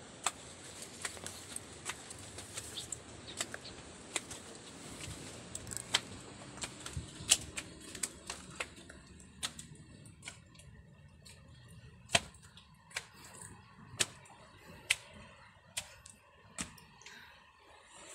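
Footsteps on concrete stairs: a string of sharp slaps, busy and irregular at first, then slowing to about one a second in the second half, over a faint hiss that drops away about halfway through.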